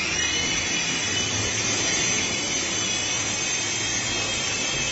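Toy remote-control helicopter's small electric motors and rotors starting abruptly and running steadily, a high whine over the rotor noise.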